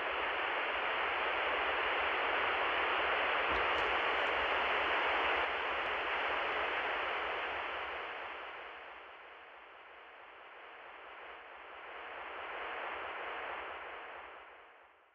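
Hiss of television static from an old CRT set, steady at first, sinking about ten seconds in, swelling again and then fading out.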